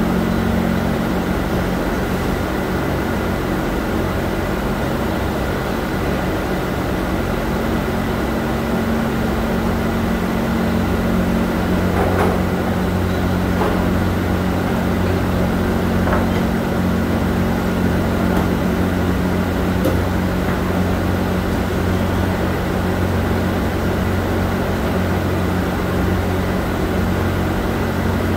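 Steady hum of factory machinery running, with a few faint clicks about halfway through.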